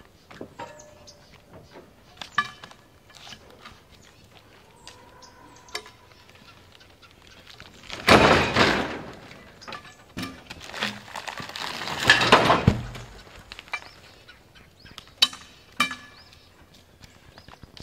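Pine logs being pried and shifted on a loaded log trailer with a long-handled bar: scattered knocks and clicks of wood and metal, with two louder scrapes, each lasting about a second, roughly eight and twelve seconds in, as a log slides and rolls across the others.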